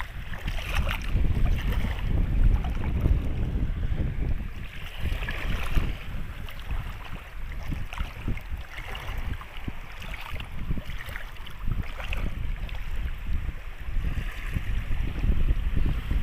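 Wind buffeting the microphone in uneven gusts, over small sea waves lapping and washing at the shore.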